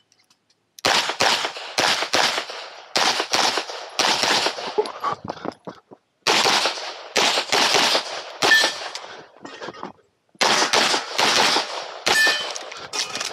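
A 9mm CZ Shadow 2 pistol firing 147-grain rounds in fast strings of shots, mostly in quick pairs. There are two short pauses, about six and ten seconds in.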